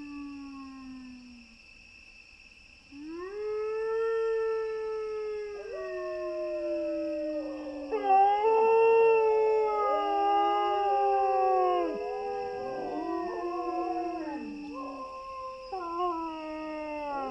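Dog howling: long drawn-out howls that slide slowly in pitch, starting about three seconds in, with a second howl overlapping from about five seconds in and several overlapping near the middle.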